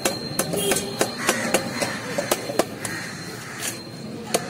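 Snakehead (shol) fish being scraped and cut against an upright boti blade: irregular sharp clicks and scrapes, about two or three a second.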